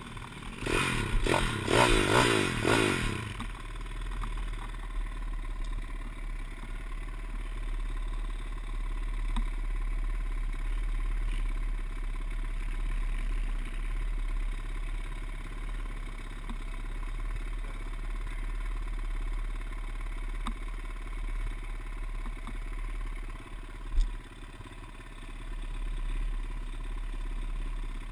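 Pit bike engine revving in a short burst for the first three seconds or so, then a steady low rumble for the rest, broken by one sharp knock near the end.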